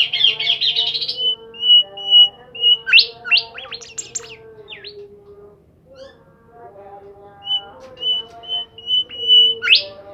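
A caged songbird singing energetically, in the manner Indonesian keepers call gacor. It gives fast trills, rows of short repeated high notes and sharp whistled sweeps, pauses briefly midway, then resumes. A fainter, lower-pitched tonal sound runs underneath.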